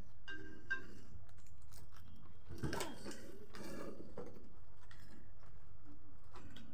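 Denim jeans and plastic packaging being handled: scattered rustling with small clicks and taps, over a steady low hum.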